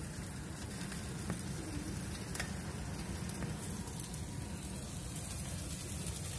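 Tortillas dipped in birria fat sizzling steadily in a skillet, with a few light clicks of the tongs as meat is laid on them.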